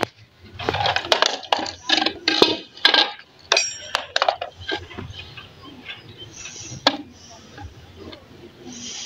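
Metal tools and motor parts clinking and knocking on a concrete floor as a washing machine motor is handled: a quick run of sharp clinks in the first few seconds, one with a brief metallic ring, then quieter shuffling and a single knock near the seven-second mark.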